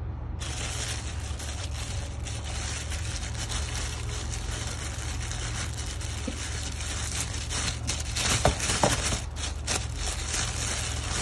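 Thin plastic carrier bag crinkling and rustling as fingers work at its tied knot, with two louder snaps about eight and a half seconds in. A steady low hum runs underneath.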